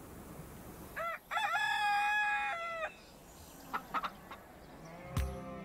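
Rooster crowing once: a short rising note, then a long cock-a-doodle-doo held for about a second and a half.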